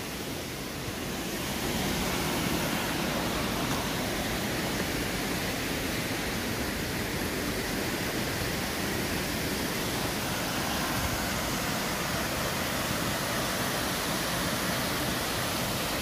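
Waterfall rushing: a steady noise of falling water that grows a little louder about two seconds in.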